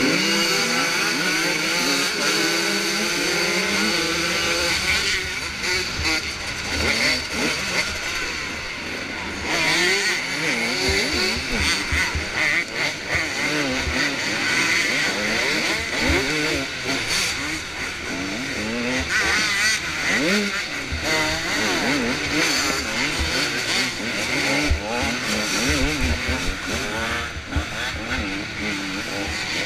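Motocross bike engines running hard, several at once: their notes rise and fall with throttle and gear changes, over heavy wind rush on a helmet-mounted camera.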